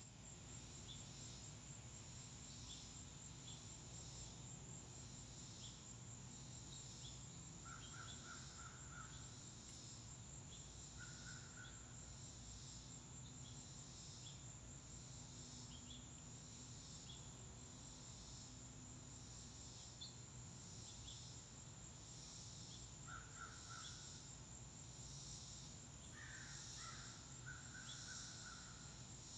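Faint insect chorus, crickets or katydids, a steady high-pitched pulsing trill. Over it, a few short series of quick repeated bird calls come at intervals, with scattered thin chirps and a low background rumble.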